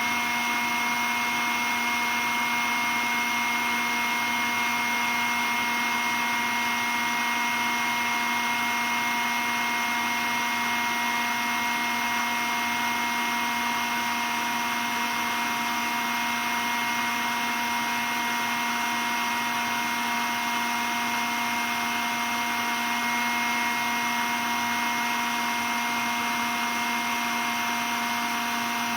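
Cordless stick vacuum cleaner running continuously at a constant speed: a steady motor whine with several fixed high tones over an even hiss of rushing air.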